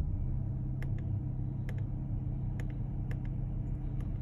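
Short sharp clicks of the steering-wheel menu buttons being pressed a few times while scrolling through the car's settings, about a second apart, over a steady low hum inside the car's cabin.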